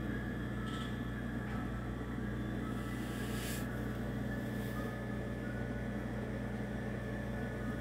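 Steady low hum of a running appliance motor, even throughout, with a faint brief hiss about three seconds in.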